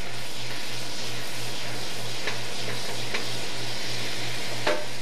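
Butter, wine and caper pan sauce sizzling in a frying pan as it is stirred with a wooden spoon, with a few light ticks of the spoon against the pan. A low hum pulses underneath about three to four times a second.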